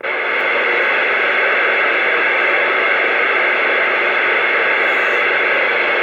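CB radio receiver hissing with steady static between transmissions. The hiss switches on abruptly and holds at an even level.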